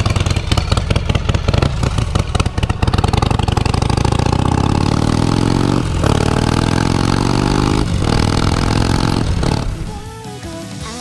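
Harley-Davidson XL1200X Forty-Eight's 1200 cc V-twin, through a dry-sounding aftermarket muffler, pulling away and accelerating. Its pitch climbs through the gears, with two short breaks for upshifts about six and eight seconds in. Near the end it gives way to rock music.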